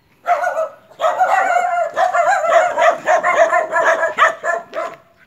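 A dog barking rapidly and repeatedly in high-pitched barks: one short bark about a quarter second in, then an almost unbroken run of barks from about a second in.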